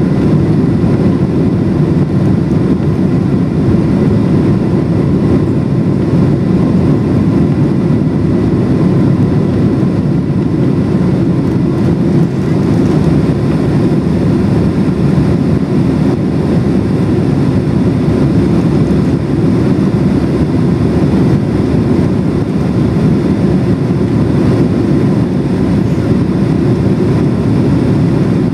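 Steady cabin noise inside a Boeing 767-300 airliner in flight: a constant low rumble of the jet engines and rushing air, with a faint steady whine over it.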